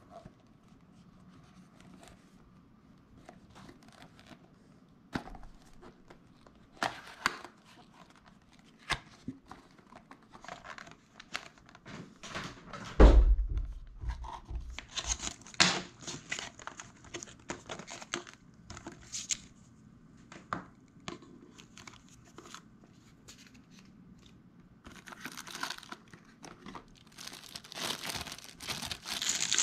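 A small cardboard product box being opened and unpacked by hand: scattered taps and paper rustles, one heavier bump about halfway through, then a plastic bag crinkling near the end as its contents are unwrapped.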